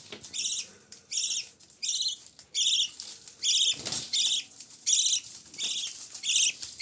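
Budgerigar chick giving short, raspy, buzzy calls over and over at an even pace, about one and a half a second, with a brief handling rustle about four seconds in.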